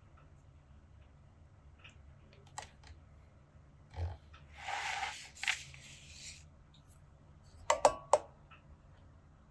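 Fountain pen nib scratching faintly on paper as a word is finished. A brief rustling, brushing noise of handling follows for about two seconds, then three sharp clicks close together near the end.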